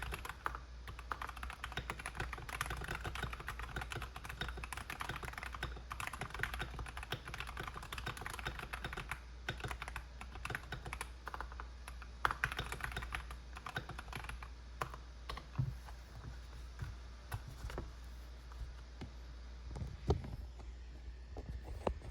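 KBD67 Lite mechanical keyboard with lubed Outemu Ice Clear V2 switches being typed on: a fast, continuous stream of keystrokes that thins out about halfway to slower, separate presses, with a few louder strikes. The sound is on the clacky side, which comes from the bump-ons fitted to the board.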